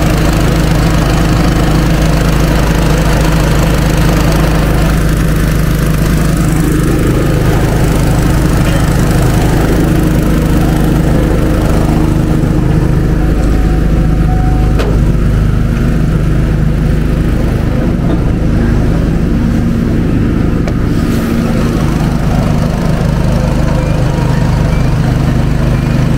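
Engine-driven Hobart welder-generator running steadily at a constant speed, a continuous low engine drone.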